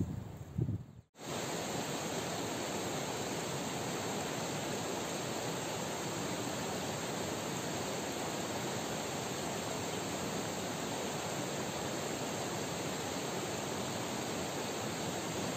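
A small forest creek rushing and tumbling over rocks: a steady, even wash of water. It begins about a second in, after a brief low rumble that cuts off suddenly.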